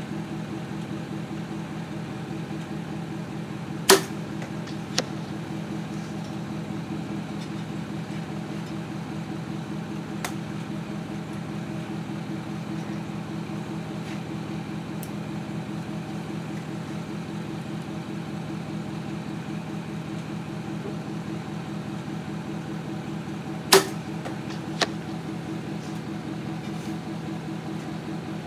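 Mathews Triax compound bow shot twice, about four seconds in and again near the end. Each shot is a sharp snap of the string on release, followed about a second later by a fainter smack as the arrow strikes the target. A steady low mechanical hum runs underneath.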